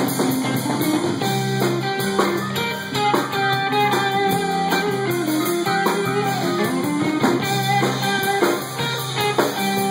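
Live band playing: electric guitar over a drum kit.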